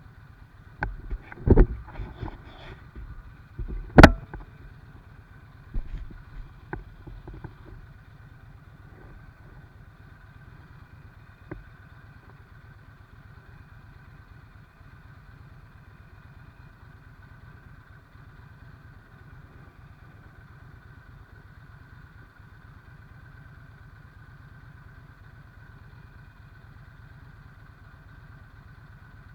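A handful of sharp knocks and clatters in the first few seconds, the loudest about four seconds in, over a faint steady low hum that carries on alone afterwards.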